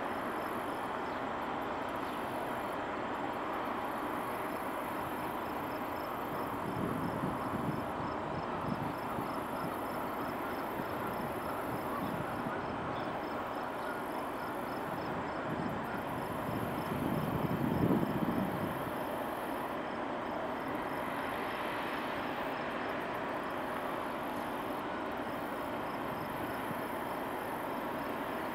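Steady mechanical rumble and hiss of the tanker ALGONORTH's engine and deck machinery as the ship passes close by. The low rumble swells louder twice, about 7 and 18 seconds in.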